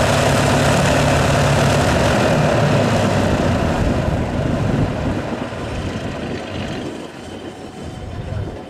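North American TF-51D Mustang's Packard Merlin V-12 engine, a steady low engine note for the first few seconds, then a rushing rumble that fades away over the last few seconds.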